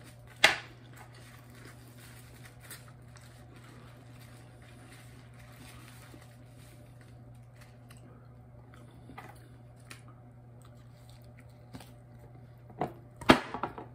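Eating sounds: quiet chewing and handling of food under a steady low hum, with one sharp click about half a second in and loud crunching near the end as a crunchy chip is bitten.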